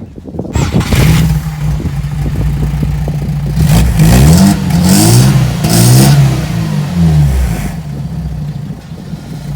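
Car engine starting about half a second in, settling to idle, then revved three times in quick blips between about four and seven seconds before dropping back to a steady idle, heard through the exhaust.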